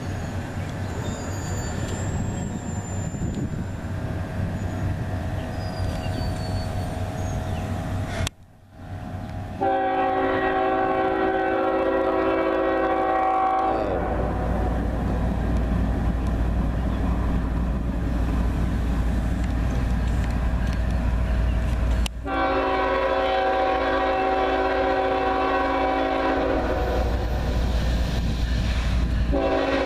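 Nathan K5HLL five-chime air horn on a GE ES44AC diesel locomotive sounding long blasts for a grade crossing: one about a third of the way in, lasting about four seconds, and a longer one starting about three quarters of the way in. From about halfway, the low rumble of the approaching diesel locomotives builds up underneath.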